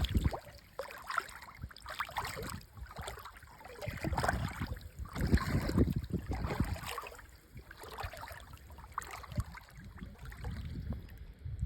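River water lapping and sloshing in irregular surges.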